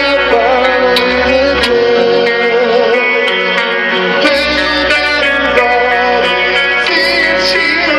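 Live heavy metal band playing loud and steady: distorted electric guitars over regular drum hits. The deep bass drops away for about two seconds in the middle, then comes back.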